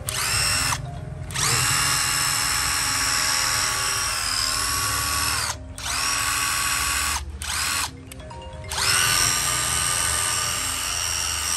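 Bosch PS41 12-volt impact driver run free with no load in several trigger pulls. Its motor whines up to speed, holds steady and stops, with short gaps between runs; the longest run lasts about four seconds and the last begins near the end.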